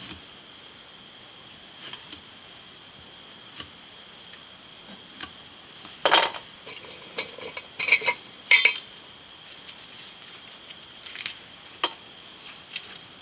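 Metal dishes and utensils clinking and clattering in scattered bursts, loudest in a cluster about six to nine seconds in.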